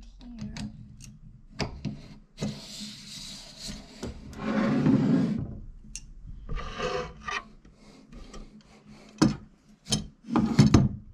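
Parts of a monitor holder being handled and fitted onto a desk: rubbing and scraping with scattered clicks and knocks. There is a longer scrape about three to five seconds in and a few sharp knocks near the end.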